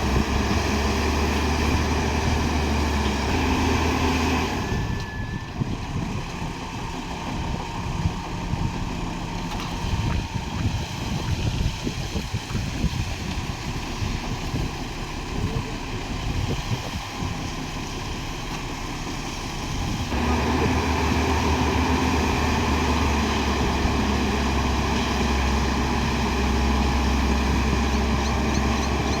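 JCB 205 excavator's diesel engine running steadily. It drops back for a stretch in the middle, where many irregular knocks and rattles are heard, and comes up louder again about two-thirds of the way through.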